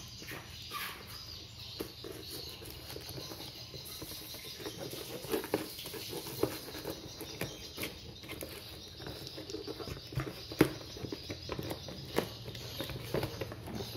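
Knife slitting the packing tape along a cardboard box's seams: irregular scraping, crackling and tapping of blade on tape and cardboard, with one sharper click a little past the middle.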